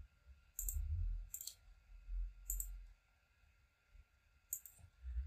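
Computer mouse buttons clicking faintly four times, each a quick double click of press and release, with soft low thuds underneath.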